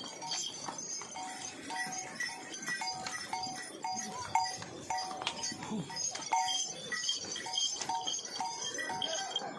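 Bells clanking in a steady rhythm, about two strikes a second, over a background hubbub.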